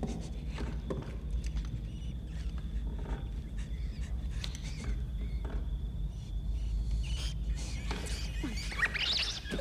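Tense horror-film sound design: a steady low rumble with scattered creaks and small knocks, then near the end a brief high squealing that rises and falls.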